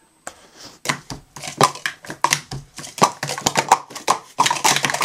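Plastic Speed Stacks sport-stacking cups clacking rapidly against each other and the mat as they are stacked up and down in quick succession, starting within the first second.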